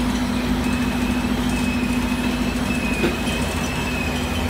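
Linear glass-bottle liquid filling machine running: a steady motor hum, with a faint high whine that comes and goes and a light click about three seconds in.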